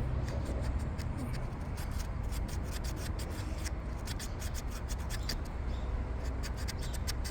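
Hands working on parts in a car's front end: rubbing and scraping with many small irregular clicks and ticks, over a steady low hum.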